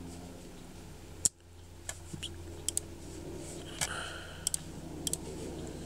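Computer mouse clicking: a few sharp single and double clicks while selecting items in software, over a steady low hum.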